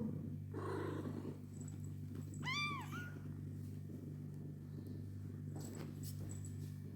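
A kitten meowing once: a short, high mew that rises and falls, about two and a half seconds in.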